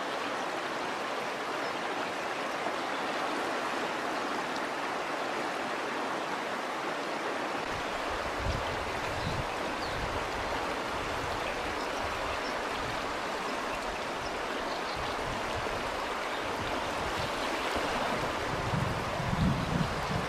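Fast river current rushing steadily, with an uneven low rumble joining in from about eight seconds in.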